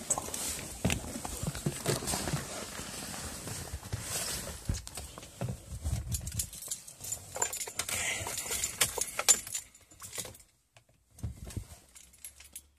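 Rustling, knocks and jangling keys as someone gets into a car's driver's seat with the engine off, ending with a few quieter clicks.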